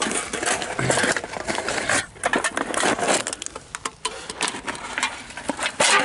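Handling noise from a handheld camera being fumbled and jostled: dense rustling against the microphone with many scattered knocks and clicks.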